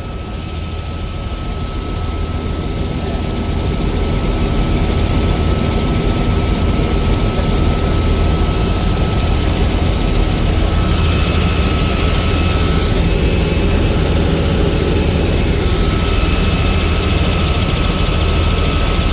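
Helicopter in flight: a steady rotor and engine drone with a deep rumble and a thin, steady whine above it, building over the first few seconds and then holding level.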